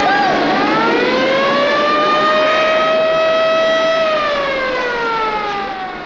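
Emergency vehicle siren wailing: its pitch climbs for about three seconds, holds briefly, then falls away over the last two seconds.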